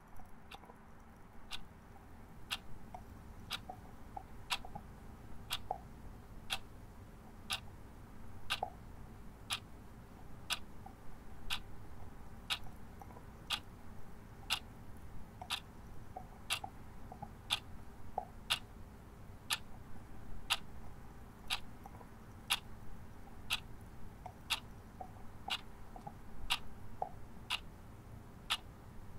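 Clock ticking steadily, about one tick a second, over a faint hum.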